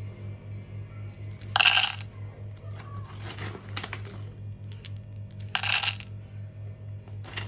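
Whole roasted Liberica coffee beans dropping into a small plastic cup, clattering in several short bursts, the loudest about two seconds in.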